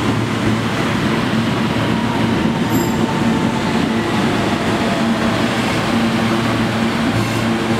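R160 New York City subway cars rolling slowly along an underground platform: a steady low hum over the rumble of the train, with a motor whine that falls slowly in pitch. A brief high ring about three seconds in.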